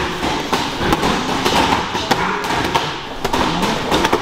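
Boxing gloves hitting hand-held pads: many sharp, irregular thuds and slaps that overlap, as several pairs drill punch combinations at once.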